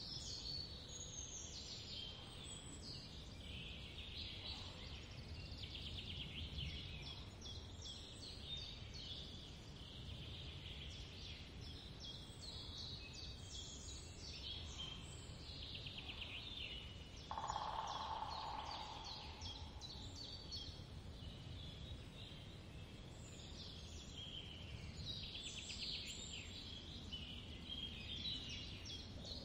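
Small birds chirping and twittering almost without a break over a low steady hum. About two-thirds of the way through, a louder sound lasts for about two seconds.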